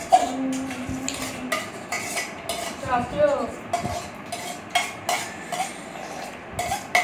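Metal spoons clinking and scraping against stainless steel bowls while eating noodles, in many short sharp clinks, some ringing briefly.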